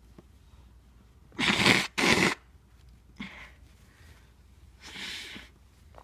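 A person sneezing twice in quick succession about a second and a half in, sneezes induced by tickling the nose with a tissue, followed by two fainter noises.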